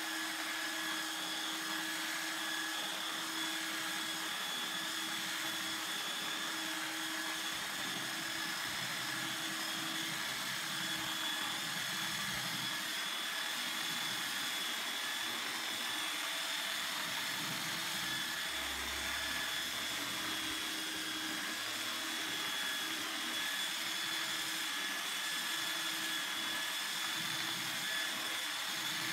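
Electric sander running steadily on a wooden tabletop, a constant whir with a high whine.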